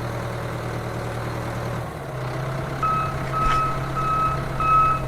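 A heavy vehicle's engine runs steadily with a low hum. About three seconds in, a reversing alarm starts beeping, roughly once every two-thirds of a second.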